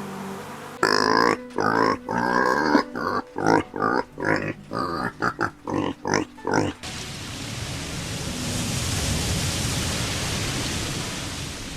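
A pig grunting and squealing in a quick series of short calls. After about seven seconds it gives way to a steady rushing hiss.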